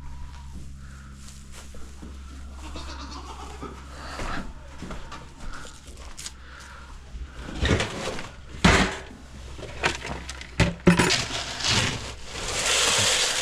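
Goats bleating in a barn, with several sharp knocks and clatters in the second half and a rushing noise near the end.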